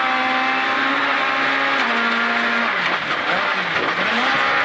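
Rally car engine at speed on gravel, heard from inside the cabin under steady road and gravel noise. About two seconds in the engine note steps down as the car comes off the throttle at the stage finish, then swings down and back up during the slow-down before settling at lower revs.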